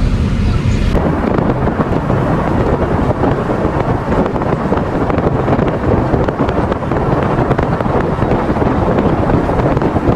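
Loud wind buffeting the microphone, a dense steady rush with heavy low rumble, starting abruptly about a second in.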